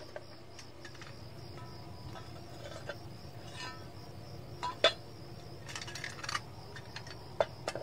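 Crickets chirping in a steady high trill, with scattered sharp metallic clicks and clinks of a wrench working on a car wheel's lug nuts; the loudest click comes about five seconds in.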